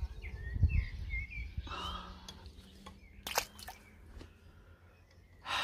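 Small songbirds chirping in the background, with a low rumble on the microphone in the first second and a couple of short sharp clicks a little past halfway.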